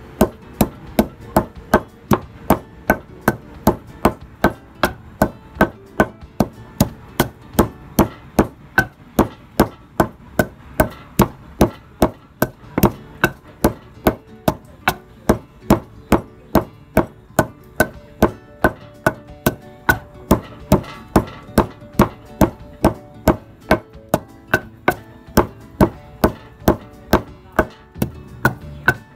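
Wooden pestle pounding chopped green herbs in a mortar, steady rhythmic thuds at about three strokes a second, grinding them into a paste for the soup.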